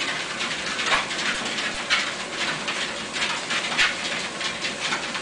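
Three dachshunds on a running treadmill: quick noisy scuffs about twice a second over a steady hiss.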